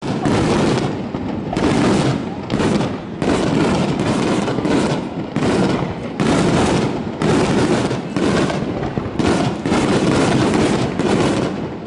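Aerial fireworks going off in a dense barrage: loud bursts follow one another about every second, each starting sharply, with a continuous rumble between them.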